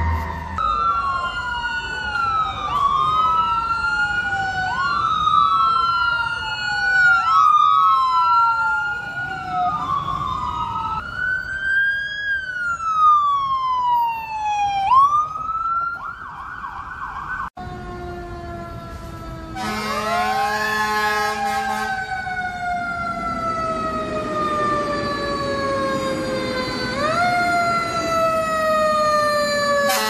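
Emergency vehicle sirens wailing. In the first half, two sirens overlap, each sweeping quickly up and then sliding down about every two seconds. After a break about halfway through, a slower wail falls over several seconds at a time, with a short low steady tone as it begins.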